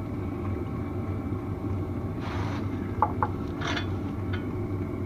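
Engine oil draining from the Jeep's 2.8 turbodiesel in a steady stream into a container. There is a short hiss about two seconds in and a few brief clicks and knocks.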